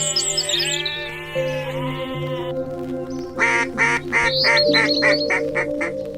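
A duck quacking in a rapid run of about a dozen quacks, five or six a second, starting about halfway through, after a string of falling calls in the first couple of seconds. Soft background music with long held notes plays underneath.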